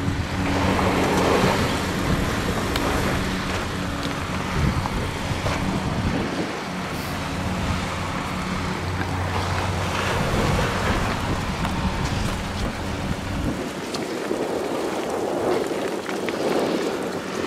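A 2022 Subaru Forester Wilderness's 2.5-litre flat-four running at a low, steady crawl, with the rough noise of tyres rolling over dirt and loose river rock that swells and fades.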